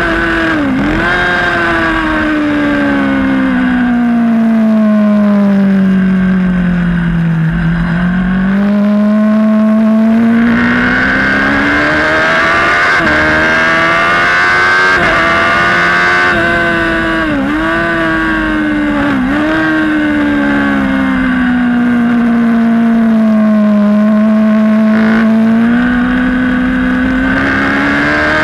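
Race motorcycle's engine heard onboard at speed. Its pitch sinks slowly, climbs again, and drops sharply for a moment a few times as gears change. Wind rushes past the bike in stretches.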